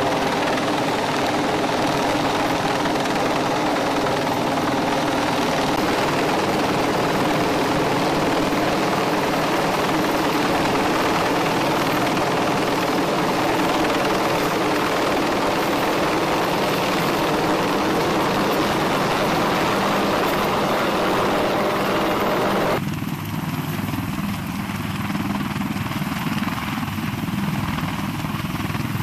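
A UH-1Y Venom helicopter's four-blade rotor beating and its turbines running steadily as it hovers. About 23 seconds in, the sound changes abruptly and becomes thinner in the middle range.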